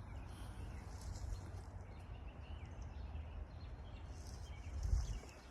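Quiet outdoor ambience: a low steady rumble with faint bird chirps, and a soft thump near the end.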